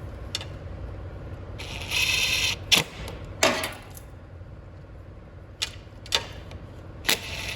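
Ratchet wrench with a 9/32 socket tightening the carburetor mounting nuts on a mower engine: a run of rapid ratcheting clicks about two seconds in, then several single sharp metal clicks and clinks of the tool.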